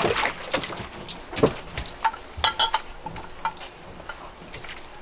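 Water splashing and dripping as a person climbs out of a hot tub, followed by a scatter of sharp clicks and light taps, a few with a short ring.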